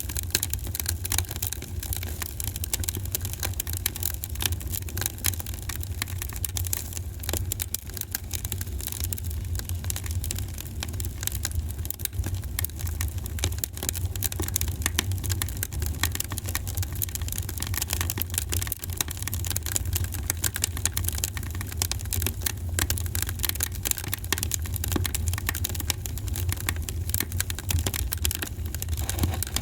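Fireplace fire crackling, with rapid irregular pops and snaps over a steady low rumble.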